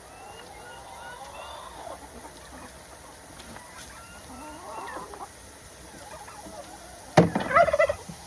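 Hens clucking and giving short, soft calls. About seven seconds in, a sudden sharp knock is followed by a loud, close squawk lasting under a second.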